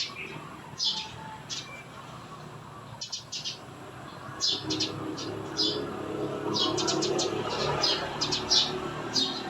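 Small birds chirping in short, quick clusters of high notes, over a low steady background hum that grows a little in the second half.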